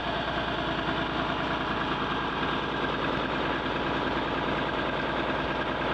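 A vehicle engine idling steadily, an even, unbroken hum.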